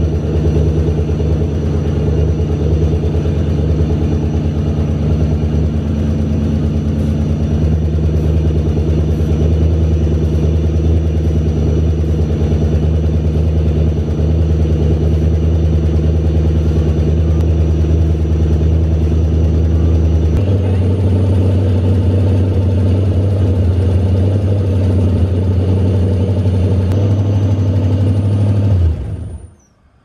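Nissan S14 240SX engine idling steadily; about two-thirds in the idle shifts up in pitch. A second before the end it cuts out suddenly, stalling as the injector power fuse blows from a short in that circuit.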